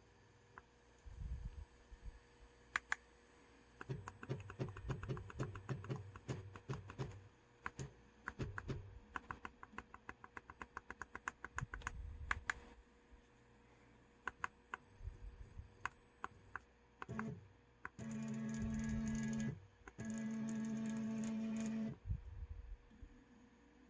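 Motors of a CNC machine's XY axes under a closed-loop controller. They give a long run of rapid clicking ticks, then two steady pitched hums of about two seconds each near the end as an axis is driven at constant speed.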